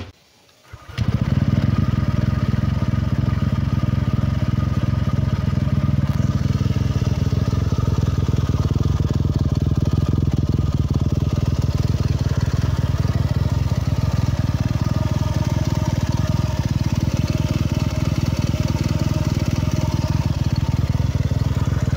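Honda PCX160 scooter's single-cylinder four-stroke engine starting about a second in, then idling steadily through a new JVT Pipe V3 aftermarket exhaust. The pipe's adjustable setting is at the middle, neither full nor closed, giving a moderate, not too loud exhaust note.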